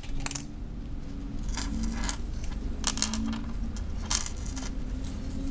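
Links of a metal chain bracelet clinking and jingling lightly as craft thread is pulled through them: a handful of short, scattered clinks.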